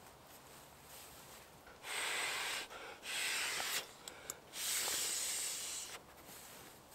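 A man blowing hard into a small inflatable held to his mouth: three long, steady breaths, with a couple of small clicks between the second and third.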